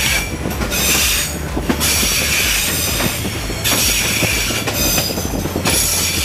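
SE9 passenger train running slowly round a curve, heard from on board: a low rumble of the carriages with steel wheels squealing against the rails. The squeal comes and goes in stretches.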